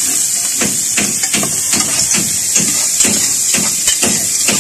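Garlic, onion and tomato sizzling in hot oil in a large metal pot, with a ladle knocking and scraping against the pot as it is stirred, about three strokes a second.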